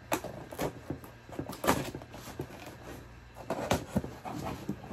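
Cardboard shipping box being cut open and handled: a string of short, irregular scrapes, taps and rustles of cardboard and packing tape, with about five sharper ones spread through.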